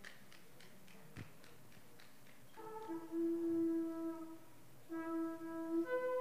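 A shofar being blown: a low held blast starting a little over halfway in, a brief break, the same low note again, then a jump up to a higher held note near the end.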